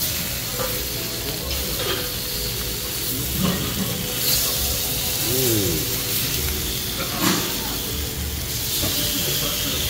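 Strips of pork sizzling on a tabletop Korean barbecue grill plate, with a few sharp clicks as the meat is turned with tongs.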